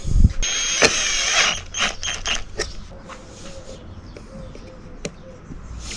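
A small motor whirs for about a second, then come several sharp clicks and knocks.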